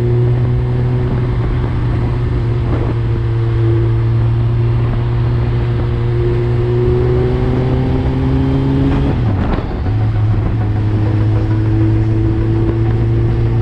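Suzuki GSX-R1000 inline-four with an Akrapovic full exhaust under way, its engine note climbing slowly as the bike gathers speed. The note dips and breaks briefly about nine seconds in, then climbs again.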